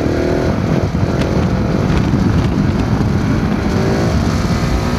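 KTM 690 SMC R's single-cylinder engine revving hard under acceleration during a wheelie, its pitch climbing in the first second and again about four seconds in, over heavy wind rush.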